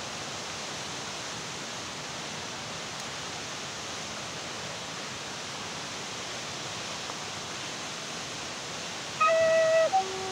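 Steady rushing hiss throughout. About nine seconds in, a flute-like wind instrument starts playing loudly: a clear held note of under a second, then a short higher note.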